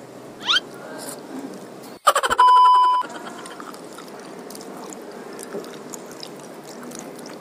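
Chewing and crunching a bite of raw cucumber. A short rising chirp comes just after the start. About two seconds in, the sound cuts out for an instant, then a crackle and a loud, steady electronic beep last about half a second.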